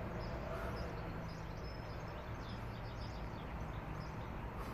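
Faint, scattered bird chirps over a steady low background hum.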